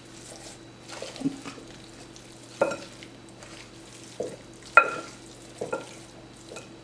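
Hands working seasoned raw chicken drumsticks in a ceramic bowl: soft wet squishing and rubbing, with scattered knocks of the pieces against the bowl, the two loudest, about two and a half and five seconds in, with a short clinking ring. A faint steady low hum runs underneath.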